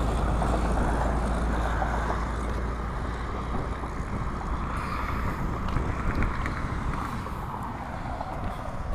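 Wind on the microphone: a steady low rumble with hiss, easing slightly over the seconds.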